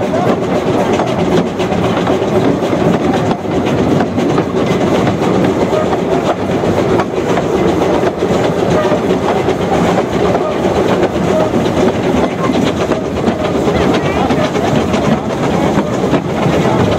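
Narrow-gauge steam train running along the line, heard from on board: a steady running noise of wheels on the rails, flecked with small clicks.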